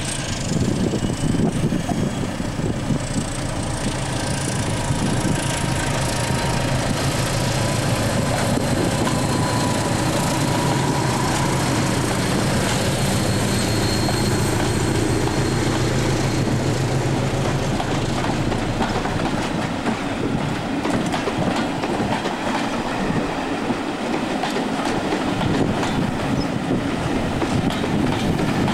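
A pair of Class 73 electro-diesel locomotives passes running on their English Electric diesel engines, hauling a train of Mk1 coaches. Once the locomotives are by, the coaches roll past with rhythmic clatter from the wheels over the rail joints and a faint, thin wheel squeal.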